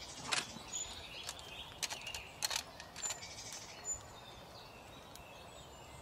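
Small songbirds calling in short high chirps and thin whistles, mostly in the first four seconds, with a few sharp clicks among them.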